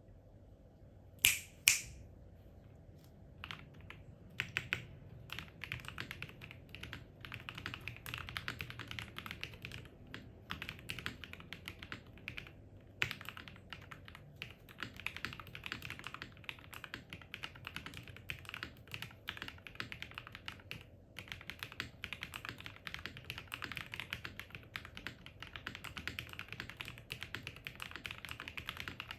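Typing on a QK80 mechanical keyboard with lubed, filmed Modern Gray switches on an FR4 plate and flex-cut PCB, fully foamed, with Shurikey Matrix keycaps. Two sharp, louder keystrokes come about a second in, a few scattered ones follow, and from about five seconds in the typing runs as a dense, rapid patter of keystrokes.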